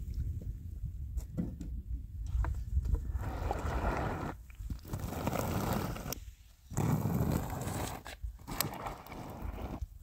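Long-handled squeegee being pushed through liquid bitumen over a concrete slab: a rough scraping swish in about four strokes in the second half, with short breaks between them, over a low rumble.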